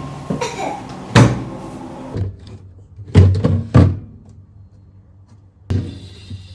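Several household knocks and thuds: one about a second in, then three in quick succession around three seconds in, like things being shut or set down.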